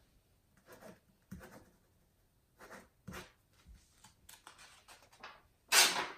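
Irregular rustling and handling noises, a string of short scrapes and knocks, with the loudest one near the end.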